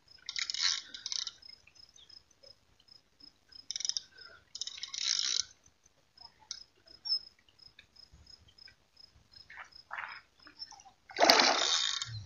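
A hooked fish thrashing at the surface by the bank: one loud splash lasting about a second near the end, after a few shorter, quieter bursts of splashing noise. A cricket chirps in a steady pulsing trill behind it.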